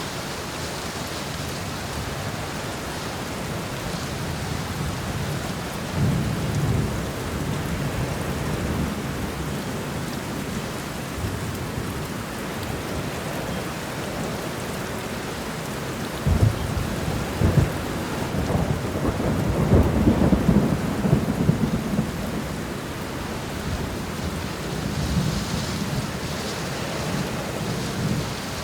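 Steady rain falling in a forest during a thunderstorm, with thunder rumbling low underneath. A short rumble comes about six seconds in, and a longer, louder roll of thunder swells past the middle and fades after several seconds.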